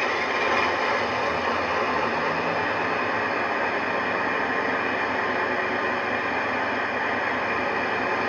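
DCC sound decoder in a model Class 68 locomotive playing a recording of a real Class 68's Caterpillar V16 diesel engine running steadily, heard through the model's small onboard speaker.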